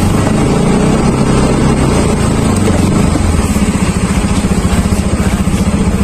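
Motorcycle engine running under way, a steady low pulsing that becomes more even from about halfway through.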